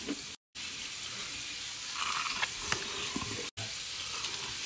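Chicken frying in hot oil: a steady sizzle with scattered crackles and pops. The sound drops out abruptly twice, briefly early on and again about three and a half seconds in.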